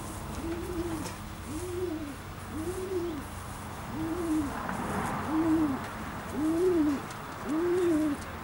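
Domestic pigeon cooing in its loft: a low coo that rises and falls, repeated about once a second and getting louder toward the end.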